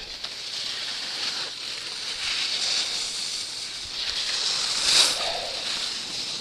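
Skis hissing and scraping over packed snow on a downhill run, swelling to its loudest about five seconds in.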